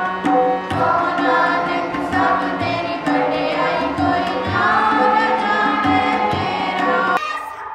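A group of girls singing a Sikh shabad (kirtan) together to harmonium accompaniment, with a steady drone and a regular low beat. The singing cuts off just before the end.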